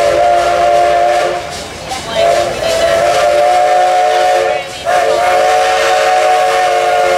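Steam whistle blowing three long, steady blasts with short breaks between them, several tones sounding together.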